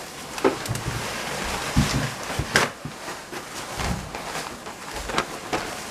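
Paper towel rustling as a large sheet is pulled out and spread flat on a tiled counter, with irregular crackles, sharp clicks and a few soft knocks.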